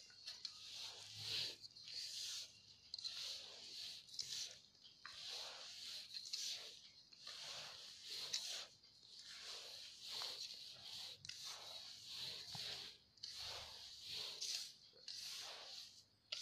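Hand mixing a crumbly gujiya filling of mawa and bura sugar in a bowl: a steady series of soft rustling strokes, about one to two a second, as the fingers rub and turn the mixture.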